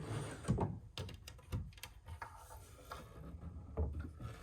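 Handling of a wooden cabinet: a few short knocks and light scrapes as a stiff door or drawer is worked.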